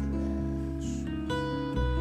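Background music: strummed acoustic guitar, with sustained chords that change about every half second.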